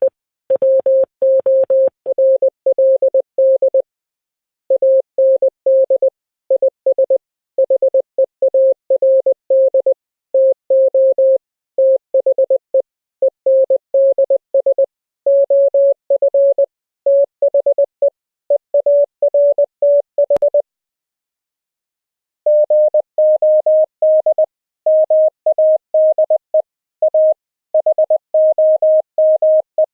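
Morse code sent as a single steady audio tone, keyed rapidly on and off in fast dots and dashes. After a two-second pause about 20 seconds in, the keying resumes a little higher in pitch.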